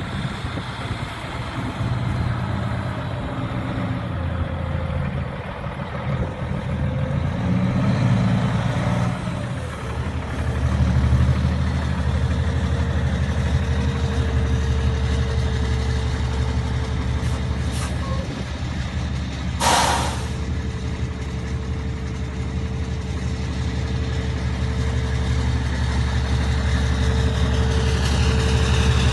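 International LoneStar semi truck's diesel engine running, its note shifting in the first few seconds and then settling into a steady low drone about a third of the way in. About two-thirds through there is one short, sharp hiss of air from the truck's air brakes.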